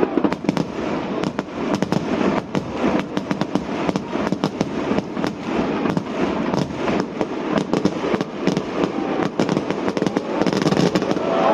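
Fireworks display: a dense barrage of bangs and crackles, many bursts a second without a break.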